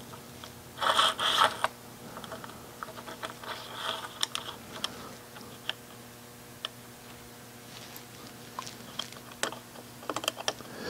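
Irregular metal clicks, knocks and scrapes of hand-tightened clamp hardware on a tool-grinding fixture, with a louder scrape about a second in, over a faint steady hum.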